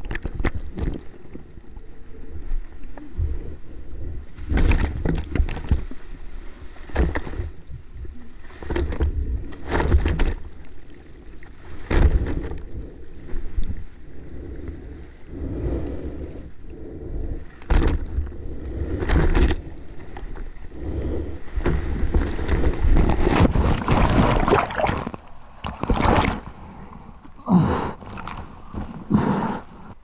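Seawater sloshing and splashing against an action camera at the surface, in irregular surges every second or two, with a louder rush of churning water from about 23 to 26 seconds in.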